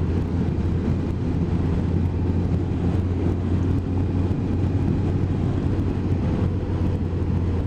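Motorcycle engine running steadily at cruising speed, with wind and road noise, picked up by a camera mounted on the bike.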